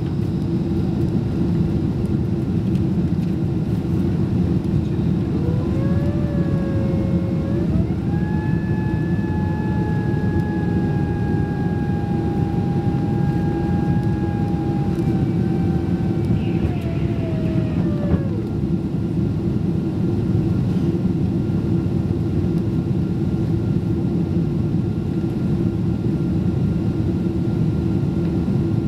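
Boeing 767-336 cabin noise from a window seat: the steady rush and drone of the jet engines and airflow in flight. About five seconds in, a separate whine rises in pitch, holds steady, then falls away and stops about eighteen seconds in.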